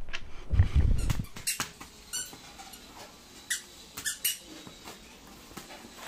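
Cardboard carton being opened by hand: a low handling thump about half a second in, then a few short, sharp squeaks and clicks as fingers work at the carton's fastening.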